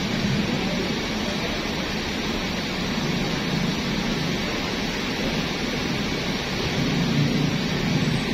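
Diesel coach engines running close by, a steady low rumble that swells a little twice as a bus pulls out and drives away.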